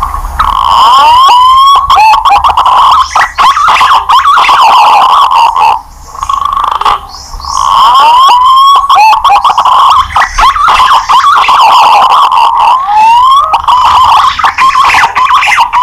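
Green pigeon (punai) lure call: a continuous run of loud, wavering whistles around one pitch with quick rising glides, briefly broken twice near the middle.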